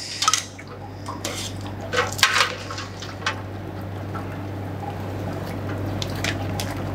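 Metal tongs clinking against a stainless steel pan and splashing in water as a vacuum-sealed bag of plums is pulled out, with water dripping and sloshing. Several sharp clinks in the first few seconds, then mostly wet splashing and dripping.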